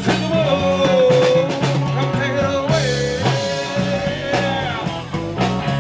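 Live rock band playing: electric bass, drum kit and a long held lead note that bends in pitch.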